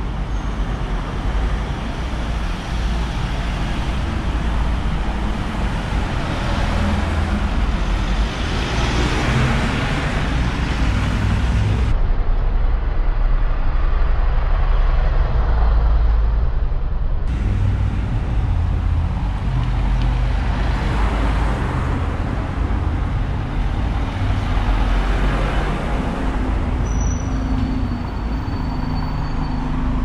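Town-centre street traffic: vehicles passing on the road, with the noise swelling twice as they go by, over a constant low rumble.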